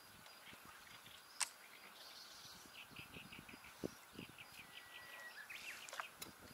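Faint birdsong: runs of short chirping notes, several a second, with a brief whistle and a few gliding notes. A single sharp click comes about one and a half seconds in.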